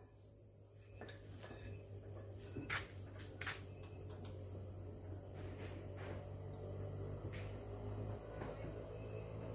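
A steady, high insect trill over a low, steady hum, with a few faint light clicks about three seconds in.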